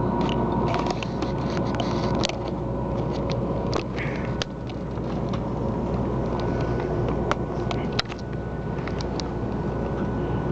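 Steady low rumble of a 300 Series Shinkansen running, heard inside the passenger car, with a scattering of sharp clicks and knocks as a seatback tray table is unlatched and folded out.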